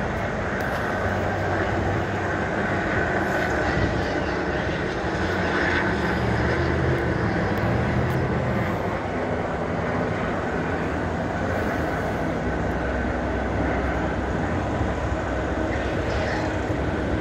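Steady vehicle noise with a low engine hum that shifts slowly in pitch and a faint high tone running over it.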